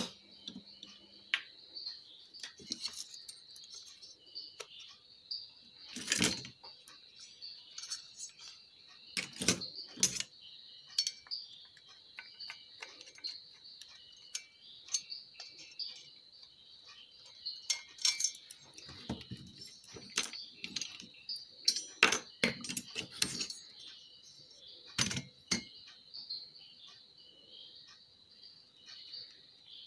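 Irregular clicks and metallic clinks of an aluminium heatsink, its bolted power transistors and a screwdriver being handled on a workbench, louder every few seconds. A steady high chirping of crickets runs underneath.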